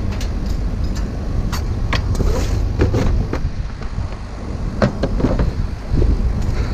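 Steady low rumble, like a vehicle engine running close by, with a series of sharp knocks and clinks of scrap items being handled and moved.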